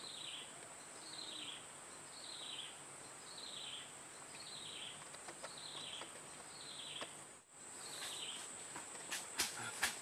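Forest ambience: a steady high-pitched insect drone, with a bird repeating a short falling call a little more than once a second. Near the end come a few sharp snaps and crunches of footsteps on the dry forest floor.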